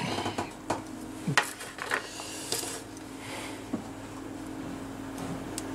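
Light clicks and clinks of small fountain pen parts being handled and fitted by hand on a metal workbench, most of them in the first couple of seconds, over a steady low hum.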